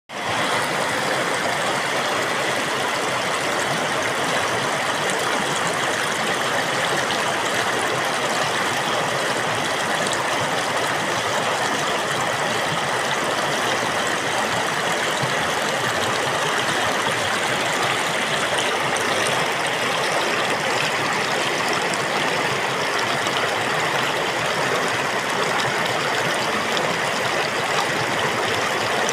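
Water flowing in a steady, unbroken rush.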